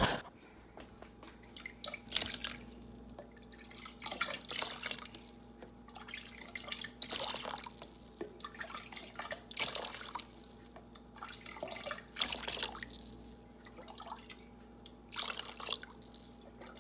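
Chicken broth being ladled from a pan and poured into plastic containers: irregular splashes and drips of liquid every second or two.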